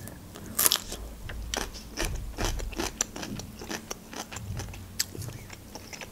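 Crisp bite into a fresh cucumber slice, with a loud crunch a little under a second in, followed by rapid crunching as the cucumber is chewed.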